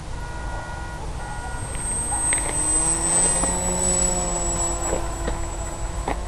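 Electric motor and propeller of a radio-controlled FPV plane whining as it flies past. The whine rises in pitch and grows louder, peaking about three seconds in, then holds steadier.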